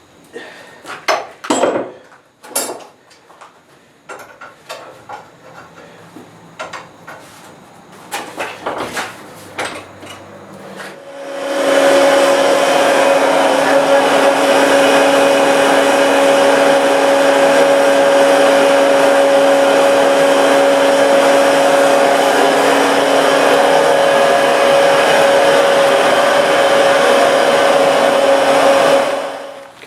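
A few scattered knocks and clinks, then an air blower starts up about eleven seconds in and runs loudly and steadily with a whooshing rush and a humming tone, stopping just before the end.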